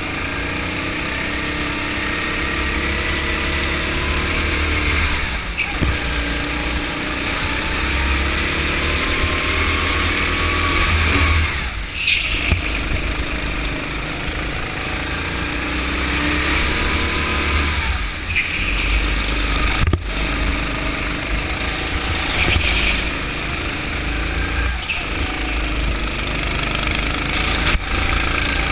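Go-kart engine heard onboard, its revs climbing steadily and then dropping off sharply about six times as the driver lifts off and gets back on the throttle through the lap.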